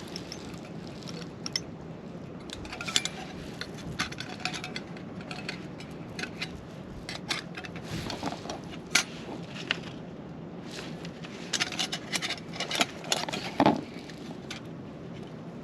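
Metal plates of a SOTO Tetra mini fire pit clinking and clicking against each other as they are slotted together, in irregular taps that bunch up near the end.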